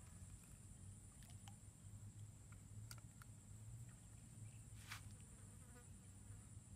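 Faint, steady drone of insects: a continuous high-pitched hum with a lower buzz beneath it, broken by a couple of soft clicks about three and five seconds in.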